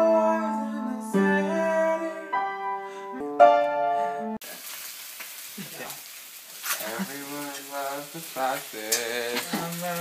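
Upright piano playing held chords for about four seconds, then an abrupt change to an egg sizzling in a frying pan, with voices over the sizzle.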